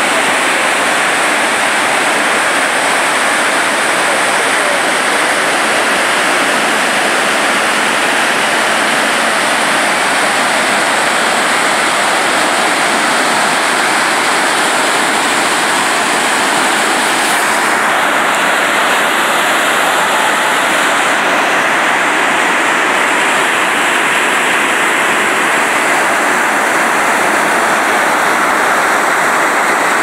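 Ouzoud Falls, a large waterfall pouring down a cliff into its pool: a loud, steady, unbroken rush of falling water.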